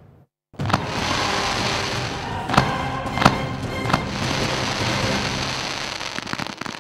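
Indoor pyrotechnic stage fountains hissing steadily, with a few sharp cracks in the middle, over music with held tones.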